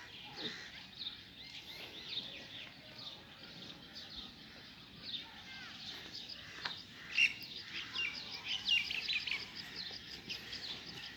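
Many small birds chirping, with quick overlapping calls that grow busiest and loudest about seven to ten seconds in.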